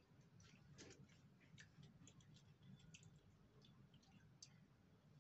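Faint, irregular clicking of small beads being handled in plastic bowls, several light clicks a second, over a faint low hum.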